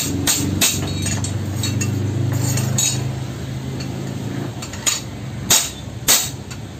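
Steel hammer striking a steel Honda Civic clutch release fork during its repair: sharp metallic clinks, a quick few at the start, then three spaced about half a second apart near the end. A steady low hum runs underneath.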